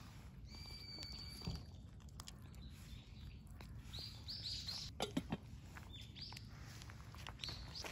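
Two cats eating wet food and kibble from bowls, with faint scattered chewing clicks and crunches. Birds chirp in the background: a short whistle near the start, then a run of quick rising chirps from about four seconds in.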